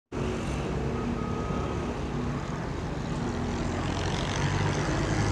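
A motor vehicle engine running steadily amid street traffic noise, growing slightly louder near the end.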